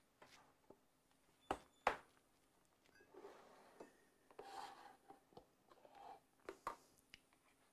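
Plastic containers and lids handled on a countertop: two sharp knocks about a second and a half in, a soft rubbing scrape in the middle, and a couple of light clicks near the end.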